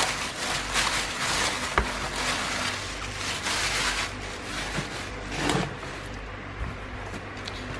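Clear plastic bag crinkling as it is pulled open and off a notebook, dense for about four seconds, then quieter with one short rustle.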